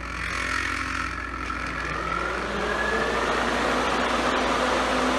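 Twin Flex-a-lite electric radiator cooling fans starting up on the AC signal, their motor whine rising in pitch and growing louder over about three seconds, then holding steady. The slow spin-up comes from the controller's soft start, which sends reduced power at first to limit current draw.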